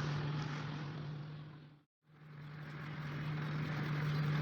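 Electric polishing machine running at a steady hum while buffing a headlight lens. The sound fades out a little under two seconds in, then fades back up.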